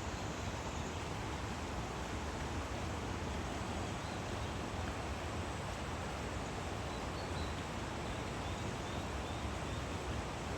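Steady outdoor rushing ambience with no change in level, and a few faint, short high chirps about seven to nine seconds in.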